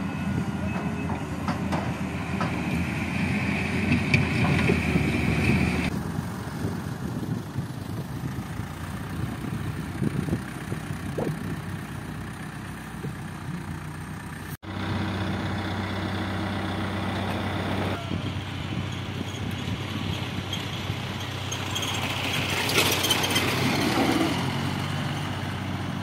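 Diesel engines of heavy earthmoving machinery and a farm tractor running steadily, with abrupt cuts between scenes, one a brief sudden drop-out about halfway through.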